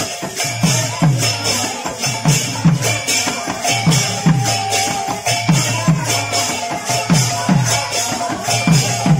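Kirtan ensemble music: two-headed barrel drums played in a steady rhythm of deep bass strokes that each drop in pitch, about two a second, over continuous high metallic jingling and a faint held melody line.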